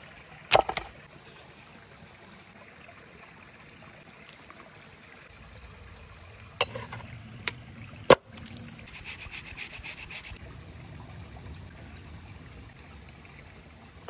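A few sharp wooden knocks as things are set down on a thick tree-slice board, the loudest about eight seconds in, followed by a second or so of quick rhythmic scraping on the wood. A creek trickles faintly underneath.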